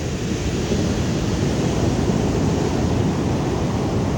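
Ocean surf with wind buffeting the microphone: a steady rushing noise, heaviest in the low end.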